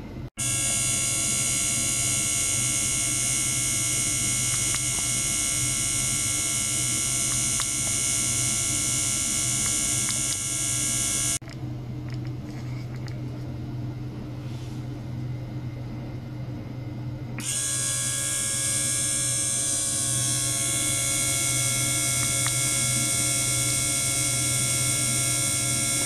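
A steady, high buzzing whine made of many fixed tones, given off by ultrasonic probes driven in a water-filled beaker, over a low hum. The whine cuts out about eleven seconds in and comes back about six seconds later with a different set of tones.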